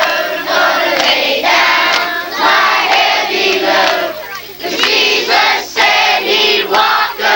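A group of children and adults singing together in loud, overlapping voices, with a short lull a little past halfway.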